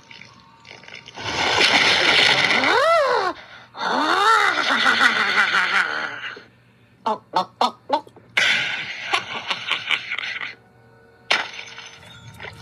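Cartoon sound effects: two loud, noisy stretches with high cries that rise and fall in pitch, then a quick run of about five sharp clicks, more noise and a single sharp click near the end.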